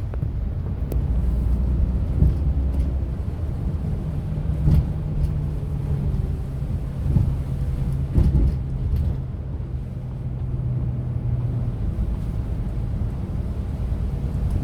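Coach engine running with low road rumble, heard from inside the passenger cabin. A few short knocks or rattles sound about five and eight seconds in.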